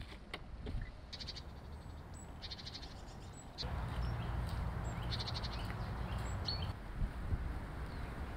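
Outdoor ambience with birds calling: short, quick rattling calls several times and brief high chirps. Beneath them a low steady rumble sets in about three and a half seconds in and eases off near seven seconds.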